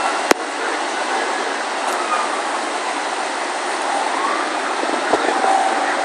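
Steady rushing noise with no clear rhythm, with a single sharp click about a third of a second in.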